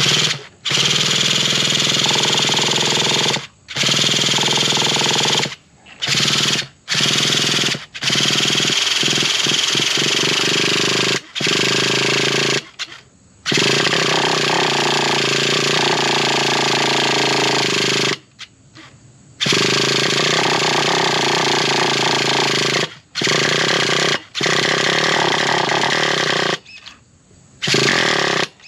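Traxxas Revo 3.3 nitro engine being spun over by its electric starter in about ten bursts of one to four seconds with short pauses between. The engine is not catching.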